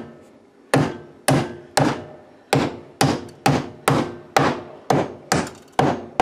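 Hammer striking wooden wall framing, about a dozen sharp blows, roughly two a second.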